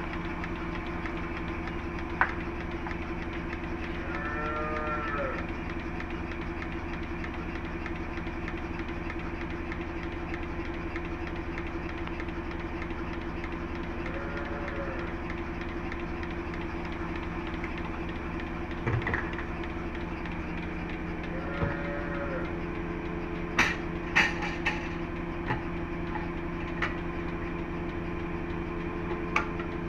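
Cattle mooing: three short calls that rise and fall, about ten seconds apart, over a steady machine hum. There are a few sharp knocks and clanks in the second half.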